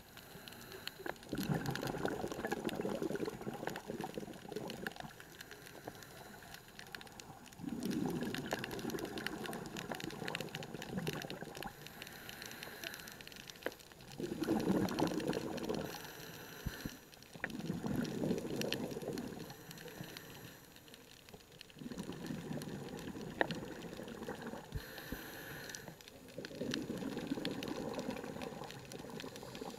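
Scuba diver's regulator exhaust: about six exhalations, each a bubbling rumble lasting a few seconds, every four to five seconds. A short faint hiss from the regulator on each inhale falls in the quieter gaps between them.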